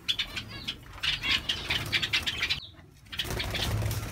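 Caged birds fluttering their wings in a rapid rustle, with a short chirp about half a second in.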